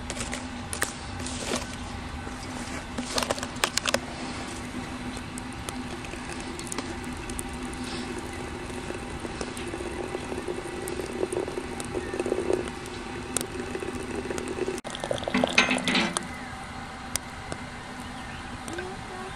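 Hot water running from a samovar's tap into a glass teapot of chamomile flowers for several seconds in the middle, stopping abruptly. Before it come a few light clicks as flowers are dropped into the glass pot, and just after it a short burst of clinking.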